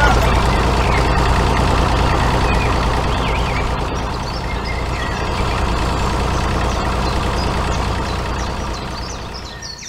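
A tractor engine running steadily with a deep low rumble, fading away near the end.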